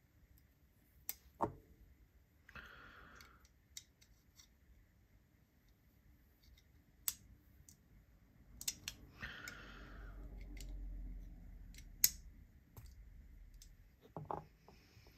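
Small metallic clicks and scrapes as a Wingman EDC Mach 3 folding knife and a driver tool are handled at the knife's pivot during disassembly: scattered sharp clicks, with two short stretches of scraping.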